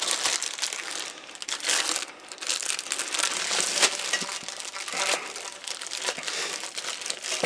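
Plastic packaging crinkling and rustling as sealed parts are handled, with irregular small crackles and clicks.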